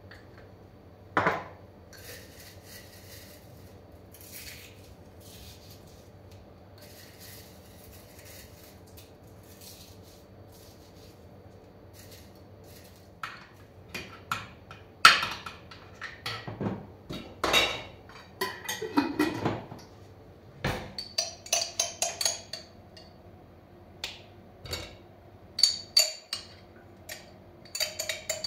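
Kitchen cooking clatter. A single sharp knock comes about a second in, then a lull. From about halfway through there is a run of clinks and knocks as a spoon works a jar and pan at the stove.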